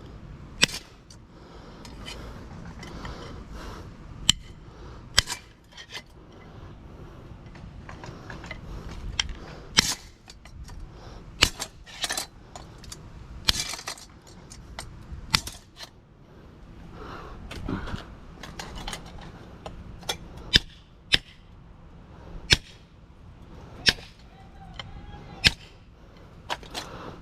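A heavy hammer striking an electric motor's metal parts, a dozen or more sharp blows at uneven spacing of one to a few seconds, with scraping and handling between them. The part being driven is stuck and not coming out as it normally does.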